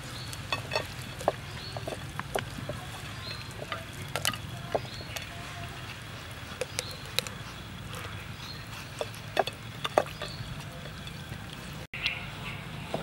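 Hands rubbing a spice marinade into the skin of a whole raw chicken: irregular wet squelches, light slaps and clicks, over a steady low hum.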